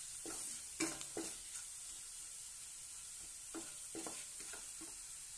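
Onions with garlic-chilli paste sizzling in oil in a nonstick frying pan, stirred with a spatula that scrapes the pan in short strokes: a couple about a second in, and several more between three and a half and four and a half seconds in. The paste is being fried until it cooks a little.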